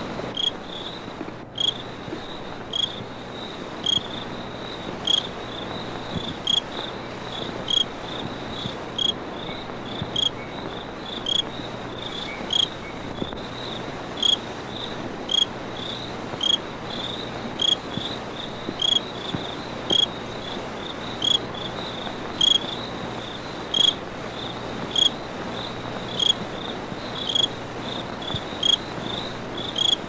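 Crickets chirping: a steady high trill with a louder chirp repeating about once a second, over a constant background hiss.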